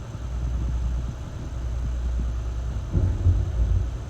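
A motor yacht's engines running at low speed, a steady low rumble. About three seconds in it briefly gets louder and rougher.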